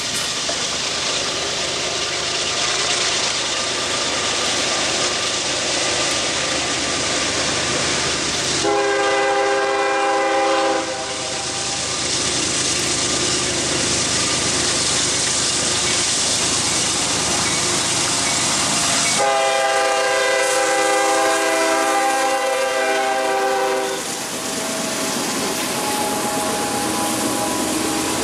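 Approaching freight train led by a Union Pacific GE C45AC-CTE diesel locomotive sounds its multi-note chord horn twice: a blast of about two seconds about nine seconds in, then a longer blast of about five seconds near twenty seconds in. The train runs steadily throughout, with freight cars rolling past near the end.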